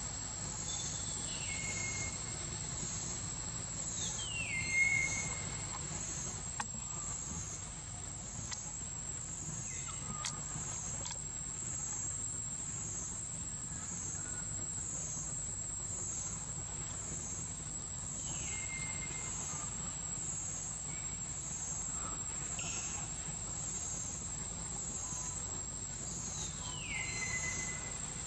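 Steady, high-pitched insect buzz with a regular pulsing, over a low hum. A few short calls slide down in pitch and end on a held note: one near the start, the loudest about five seconds in, another past halfway and one near the end.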